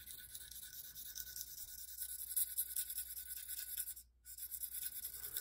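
Steel knife blade stroked back and forth on a wet diamond waterstone: a quick run of light scraping strokes, with a brief pause about four seconds in.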